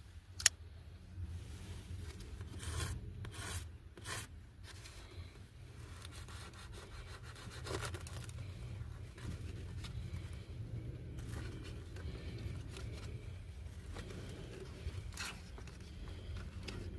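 Rustling and rubbing handling noises with scattered small clicks over a steady low hum.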